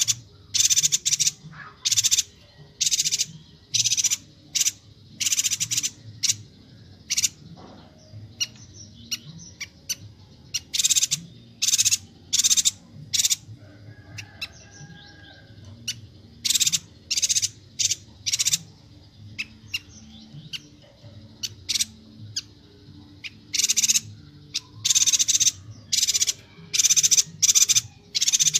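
A yuhina, the bird sold as 'Yuhina Kalimantan', calling in rapid, high chattering bursts, one every half second to a second, in runs with short pauses between.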